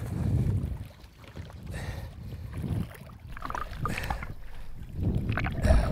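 Wind rumbling on the microphone and water splashing beside a bass boat as a hooked bass is fought at the surface, in uneven surges loudest at the start and again near the end.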